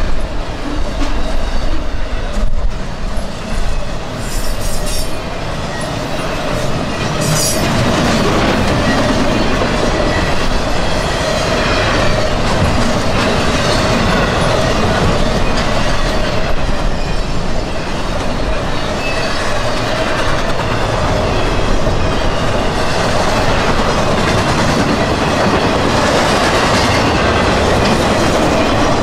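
CSX freight train's cars rolling past steadily, wheels clacking over rail joints, with a steady squeal from the wheels.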